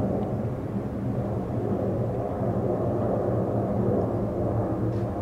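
Jet engine noise from a Boeing 767 passing overhead: a steady low rumble with a faint hum under it.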